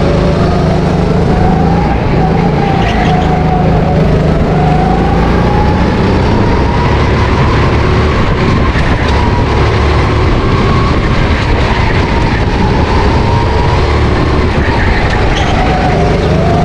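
Honda GX270 270cc single-cylinder four-stroke engine of a go-kart running hard, heard onboard, its pitch rising and falling as the kart speeds up on the straights and slows for the corners.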